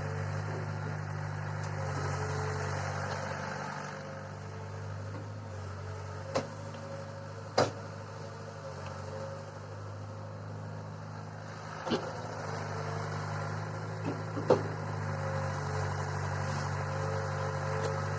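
Tractor engine running steadily, with several brief sharp knocks or clanks over it, spread through the middle of the stretch.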